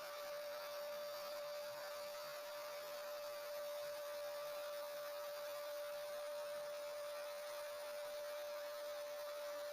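Homemade CNC router's spindle running at a steady speed: one unchanging high-pitched whine over a steady hiss.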